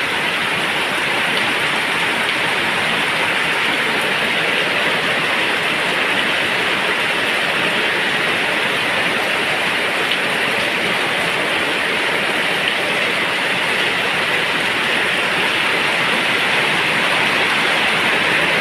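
Heavy typhoon rain pouring down, a steady, even hiss with no let-up.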